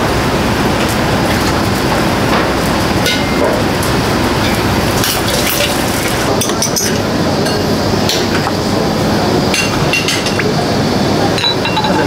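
Restaurant kitchen clatter: sharp metal clinks and knocks of cooking utensils, scattered over a steady loud rushing noise.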